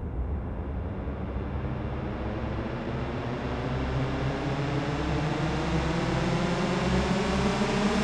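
Electronic demoscene soundtrack opening: a hissing synth drone with a slowly rising phaser-like sweep over a pulsing low bass, growing gradually louder.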